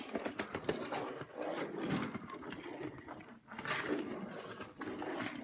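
Die-cast toy car running along a plastic track playset, a rapid, uneven clicking and rattling of wheels and plastic.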